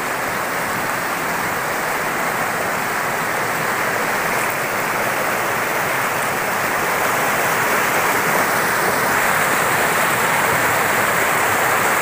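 Fast mountain stream rushing and splashing over boulders, a steady rush of white water that grows slightly louder in the second half.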